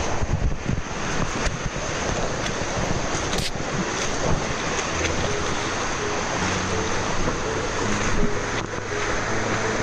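Waterfall rushing steadily, a constant noise of falling water, with a short click about three and a half seconds in.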